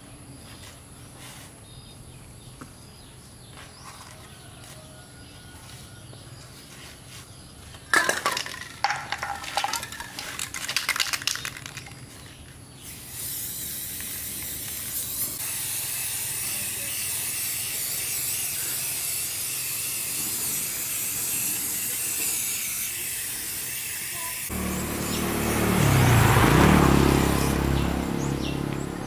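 Aerosol spray-paint can hissing steadily as it sprays paint onto a steel wheel rim, getting louder and fuller near the end. Before the spraying begins, a few seconds of sharp clicks and knocks.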